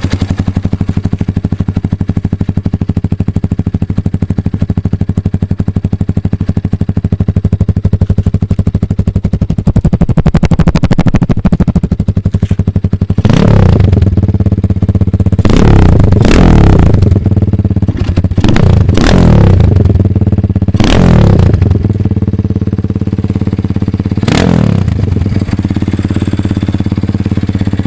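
Kayo K1 enduro motorcycle's single-cylinder four-stroke engine idling steadily through its muffler, then revved in five quick throttle blips that rise and fall, from about halfway through. The engine is new and still being run in.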